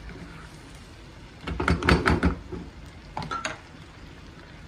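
A spatula stirring and knocking against a nonstick frying pan of garlic and red chilli cooking in oil. A quick run of clacks comes about a second and a half in, and a few lighter ones come about three seconds in.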